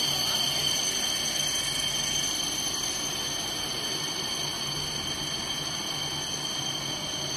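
PF A 2900 jumbo-roll paper slitting rewinder running: a steady mechanical noise with a few steady high whines over a low, slightly pulsing hum.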